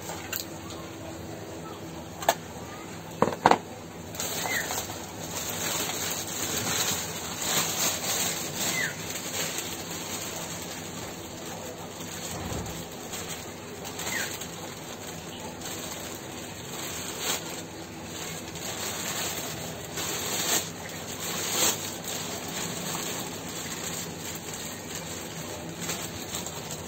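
Black plastic bag crinkling and rustling as it is handled, starting about four seconds in, after a few sharp clicks near the start.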